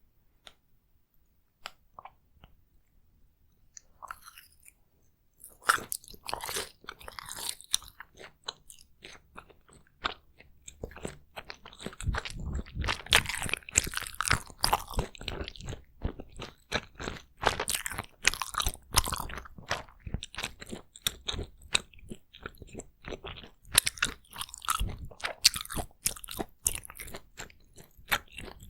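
Takoyaki being bitten into and chewed right at the microphone, with close mouth sounds in quick irregular bites and chews. After a few small clicks, the eating starts about five seconds in.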